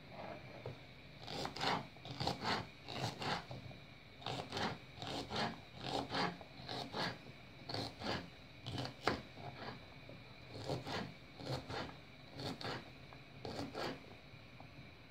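Kitchen knife chopping asparagus stalks into small pieces on a wooden cutting board: a run of short cuts, about two a second in uneven groups, each ending as the blade knocks the board.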